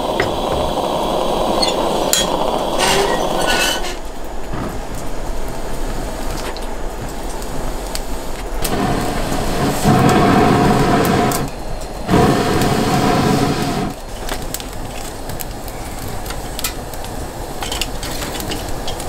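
For the first few seconds, pressurised gasoline lanterns hiss steadily, a sound they make quite noticeably. Then a wood fire burns and crackles in a metal fire pit, with scattered pops and clinks of metal tongs against the wood and the pit.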